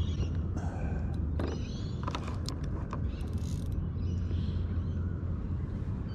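Spinning reel being wound against a hooked bream, with scattered sharp clicks and short creaks over a steady low hum.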